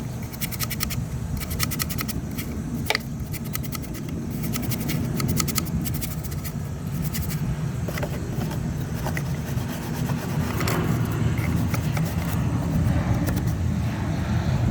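Garden hose spraying water onto a window air conditioner's coil and fan wheel: a steady rumbling rush of water, with a fast ticking in the first few seconds and scattered scrapes later.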